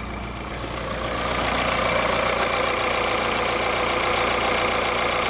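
Electric radiator cooling fan of a Toyota AE111 Corolla Levin running steadily over the engine idling, a constant rush of air with a faint hum; it gets louder about a second in as it is approached. The fan is still spinning just after the air conditioning, which triggers it, has been switched off.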